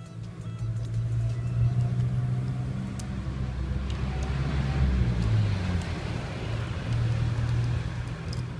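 A motor vehicle's engine running close by: a low drone that swells about a second in and drops in pitch around the middle, with a few faint clicks.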